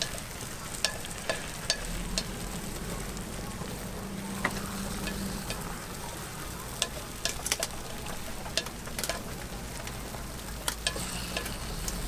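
Chrysanthemum-bread (gukhwappang) batter sizzling in a hot griddle mold, with sharp, irregular clicks and taps of a metal pick scraping and turning the cakes against the metal.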